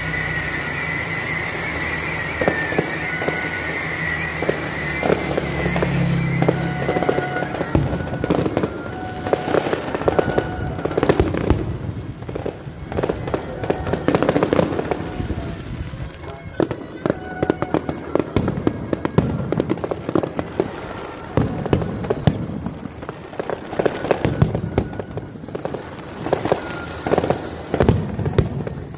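Aerial fireworks going off in a dense string of sharp bangs and crackles, the bursts coming thick and fast from about eight seconds in, with a steady high-pitched tone over the first few seconds.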